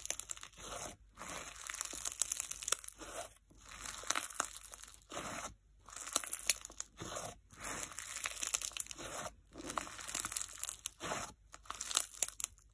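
Pink fizz slime densely packed with instant snow, crunching and crackling as a fist presses and kneads it. The sound comes in repeated squeezes with short pauses between them.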